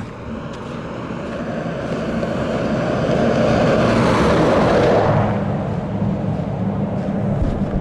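A vehicle, seen as a truck, passes on the road close by, its tyre and engine noise swelling to loudest about four to five seconds in and then fading, over a steady low engine hum.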